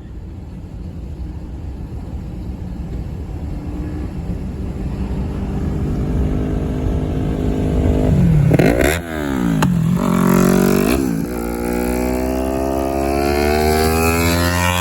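Yamaha R3's parallel-twin engine running and growing louder over the first several seconds, then a few quick sharp falls and rises in pitch around the middle, then accelerating with the pitch climbing steadily near the end.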